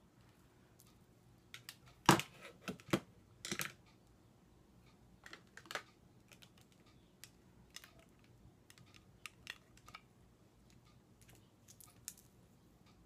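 Makeup items being handled: scattered clicks and taps of small plastic cases and tools, with a few sharper knocks about two to four seconds in.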